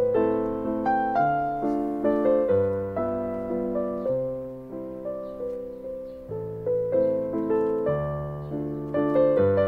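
Background piano music: a slow melody of struck notes, each dying away, over low bass notes.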